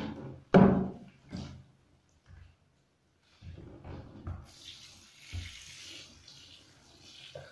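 A cat gives one short, loud meow about half a second in. From about halfway, a handheld shower head sprays water in a steady hiss onto its soapy fur, rinsing it.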